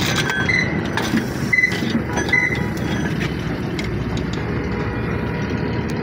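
A vehicle engine running steadily, with a few light metallic clicks and three short high squeaks in the first few seconds.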